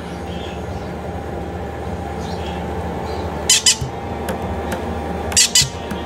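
Young conure chick giving short, harsh squawks in pairs, one pair about three and a half seconds in and another near the end: food-begging calls.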